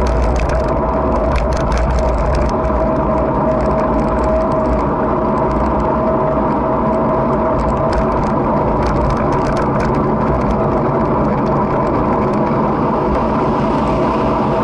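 Steady road noise while riding: a low rumble with a constant whine and light crackling ticks throughout.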